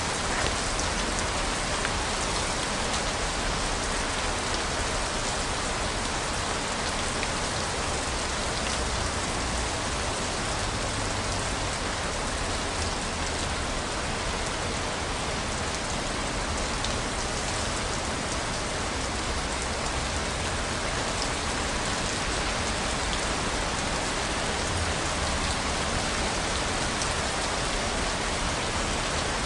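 Steady rain falling, a dense even hiss of drops with faint scattered individual drop ticks.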